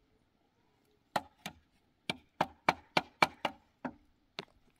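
Hammer blows on wood: two strikes, then a quick run of six at about four a second, then two slower ones.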